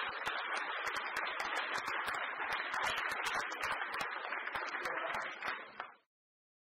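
Audience in a lecture hall applauding, a dense steady patter of many hands clapping that cuts off suddenly about six seconds in.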